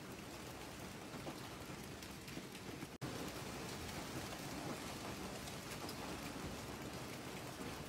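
Hailstorm: hail and heavy rain pelting the ground and the porch roof in a dense, steady patter. It cuts out for an instant about three seconds in and comes back a little louder.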